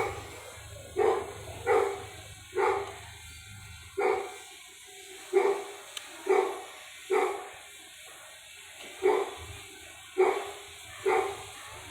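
A dog barking repeatedly, about eleven short barks at roughly one a second with a few longer gaps.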